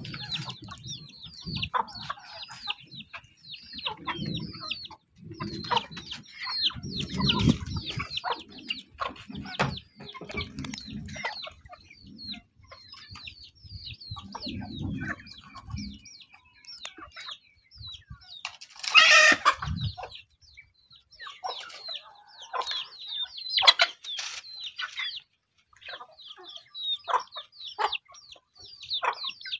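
A flock of young chickens peeping and clucking: many short, high calls throughout, with one louder, longer call about two-thirds of the way through.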